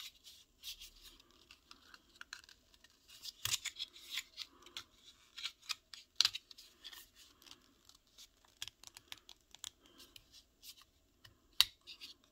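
Hard plastic parts being handled and prised at, with a security camera's mounting base being worked off. It makes irregular light crinkles and scattered sharp clicks, the loudest click near the end.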